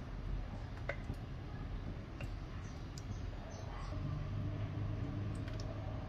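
Wood fire burning in the firebox of a wood-burning cookstove, crackling with scattered sharp pops over a steady hiss. About four seconds in, a low hum comes in underneath.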